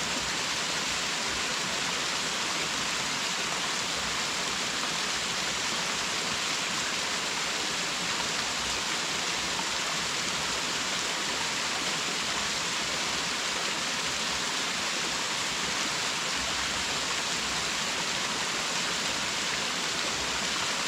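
Waterfall (Tatsusawa Fudo Falls) pouring steadily: an even, unchanging rush of falling water, hissy and bright.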